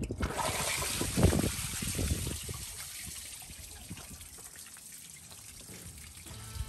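Rusty flushing water running out of a Toyota FJ45's radiator and splashing onto the ground as a garden hose flushes the cooling system. It starts suddenly, is loudest about a second in, then eases off to a steady trickle.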